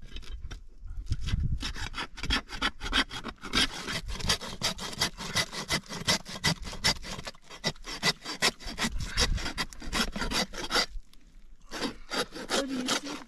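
Hand saw cutting through an elk's rib cage in quick back-and-forth strokes, about three to four a second, stopping briefly near the end and then going on.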